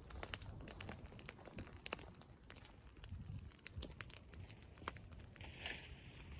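A fire of burning straw and leaves crackling, a steady scatter of small sharp pops and snaps, with a brief louder hiss about five and a half seconds in.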